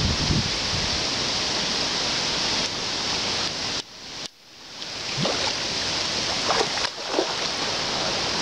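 Shallow creek water running over a riffle: a steady rushing hiss that drops out briefly about four seconds in.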